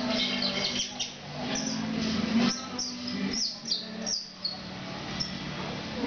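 Domestic canary singing: a string of short, high chirps, each sliding down in pitch, starting about a second and a half in and ending near the fifth second.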